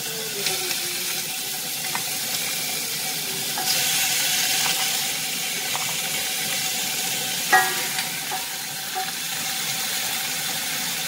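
Raw chicken pieces sizzling as they are dropped into hot oil with ginger and garlic in a stainless steel pot. The hiss swells about four seconds in, and there is one sharp clank with a short ring about seven and a half seconds in.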